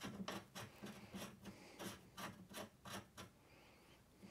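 Cotterless crank removal tool being screwed by hand into a Sinclair C5 pedal crank: faint, repeated scraping strokes of metal on metal, about three a second, stopping about three seconds in.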